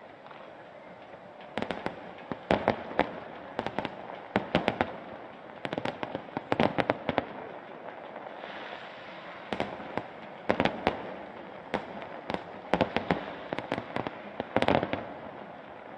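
Fireworks display: clusters of sharp bangs and cracks from exploding aerial shells, coming in irregular bursts over a steady background hiss. The bangs start about a second and a half in.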